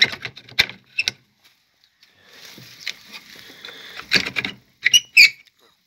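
Wooden hutch doors with wire mesh being shut and their metal sliding bolts worked by hand: a few sharp clicks and knocks, some rustling, then louder knocks and a brief metallic scrape of a bolt sliding home near the end, the loudest sound.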